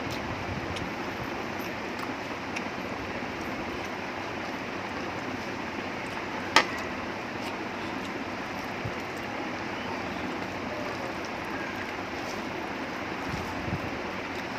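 Eating sounds: fingers mixing rice and chicken on a plate, with chewing, over a steady background hiss. Small clicks come throughout, with one sharp click about six and a half seconds in.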